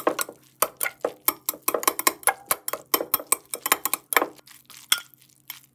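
A metal fork clinking and scraping rapidly against a glass bowl as instant stir-fried noodles are tossed with their seasoning sauce. The clinks come several a second and thin out near the end.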